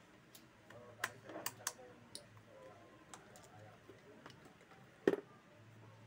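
Scattered sharp clicks and taps of small hard parts or tools being handled during an orbit fan repair, about eight in all, the loudest about five seconds in.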